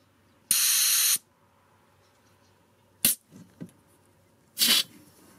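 Air hissing from a car tyre valve in two short spurts, the first about two-thirds of a second long and the second shorter near the end, with a sharp click between them. The tyre is being let down step by step for a pressure check.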